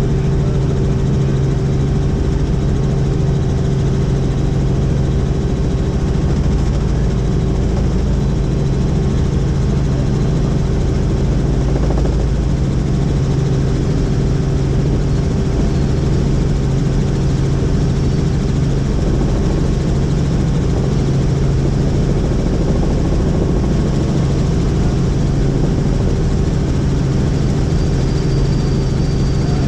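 Helicopter in flight, its engine and rotor making a steady, loud drone with a strong low hum.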